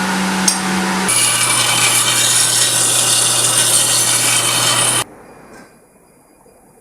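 Power tool grinding steel: a loud rasping hiss over a steady motor hum. The hum shifts lower about a second in, and the sound cuts off abruptly about five seconds in, leaving a quiet background.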